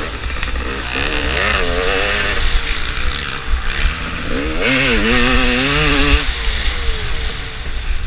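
Off-road motorcycle engine revving up and down as the throttle is worked, with louder surges about a second in and again around the middle, over a low buffeting rumble on a helmet-mounted microphone.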